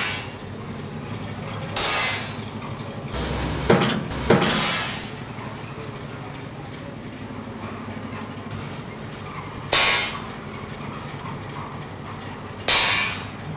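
Hammer blows on a chisel held against steel reinforcing bar: about six sharp metallic clangs that ring briefly, spaced unevenly, two of them in quick succession, over a steady low hum.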